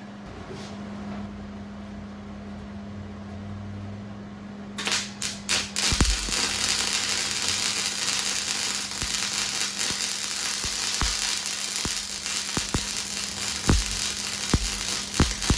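Small Hobart MIG welder: a steady low hum, then about five seconds in the arc strikes with a few stuttering starts and settles into continuous crackling with frequent sharp, irregular pops. It is running without shielding gas, which leaves porous, hideous welds.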